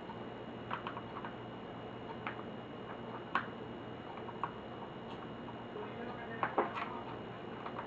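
Scattered small clicks and taps of laptop parts and screws being handled during disassembly, a few on their own and then a quick cluster near the end, over a steady background hiss.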